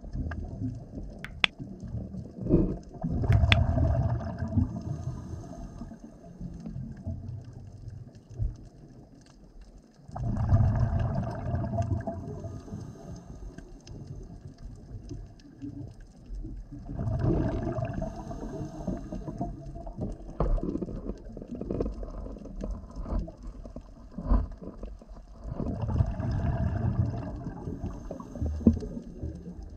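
Underwater sound: four gurgling bursts of a scuba diver's exhaled bubbles from the regulator, each two to three seconds long and several seconds apart, with scattered sharp clicks between them.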